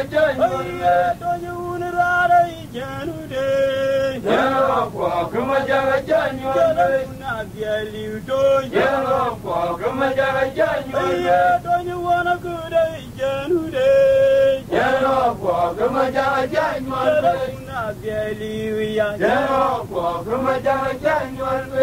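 A man singing a chant-like song, with long held notes that rise and fall.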